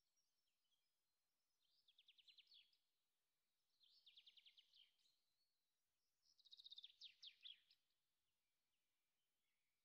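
A small bird singing faintly: three short phrases of rapid, high, downward-sweeping chirps, each about a second long, with pauses of a second or more between them.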